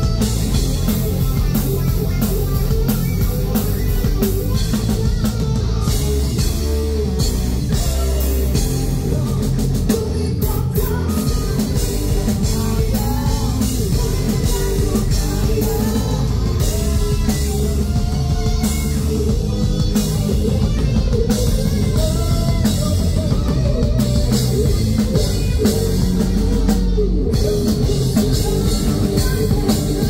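Live rock band playing loudly, with a drum kit and electric guitar.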